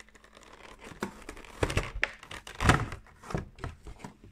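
Plastic card-box packaging being handled: a string of short clicks, knocks and crinkles, the loudest knock a little under three seconds in.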